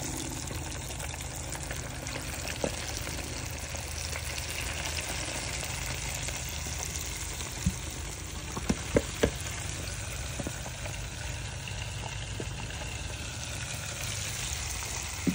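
Breaded bream frying in a deep fryer: hot oil sizzling steadily. A few sharp clicks come through, one near three seconds in and a small cluster about eight to nine seconds in.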